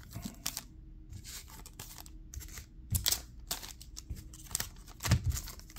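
Foil trading card packs crinkling and rustling as they are handled, in scattered short bursts, with a couple of soft thumps about three and five seconds in.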